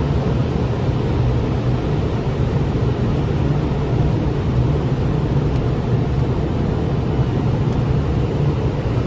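Steady cabin noise on the flight deck of a Boeing 767 descending on approach: an even low rumble with a rush of air over it.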